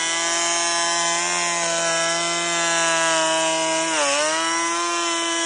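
Makita 40V cordless electric planer running and cutting a pass along tanalised timber, its motor holding a steady high whine. About four seconds in the motor pitch dips briefly under load, then recovers.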